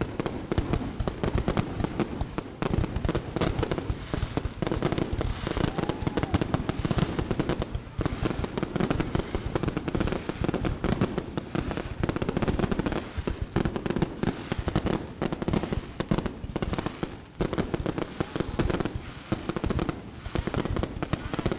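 Aerial fireworks going off in rapid, nearly unbroken succession: dense crackling and popping, with brief lulls about 8 seconds in and again near 17 seconds.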